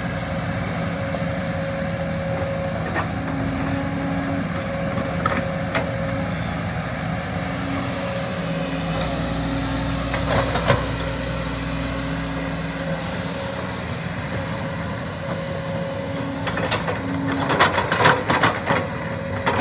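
Radio-controlled model excavator working, its motors humming steadily at a few pitches that switch on and off as the controls move. Short knocks and scrapes come now and then, clustering near the end.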